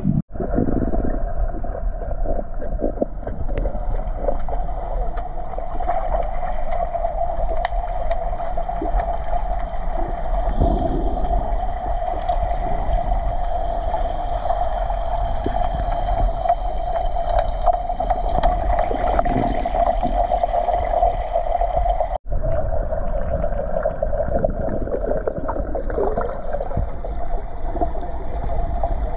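Swimming pool heard underwater through a submerged camera: a steady muffled hum with low rumble and scattered faint knocks and water noise. A brief break about three-quarters of the way through.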